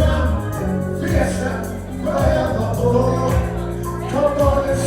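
Music with choir-like singing over sustained bass notes.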